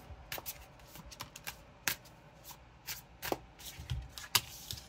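A tarot deck being shuffled and handled by hand: irregular light snaps and clicks of cards.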